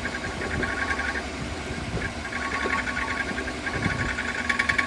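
Car engine idling with the transmission in Drive, with a fast, even rhythmic rattle that grows louder near the end. It is the strange noise the owner brought the car in for, cause not yet found.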